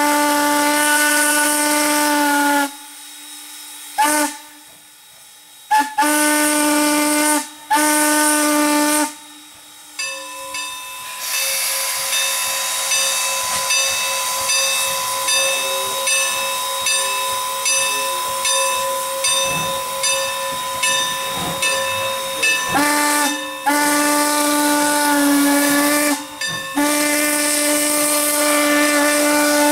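Norfolk and Western 475's steam whistle blowing a string of long and short blasts, with steam hiss. In the middle stretch a higher, thinner whistle tone holds over a steady pulsing, before two more long blasts sound near the end.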